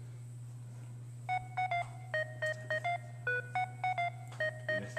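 A rapid run of short electronic touch-tone-like beeps from a mobile phone, about three a second at shifting pitches, starting about a second in, over a steady low hum.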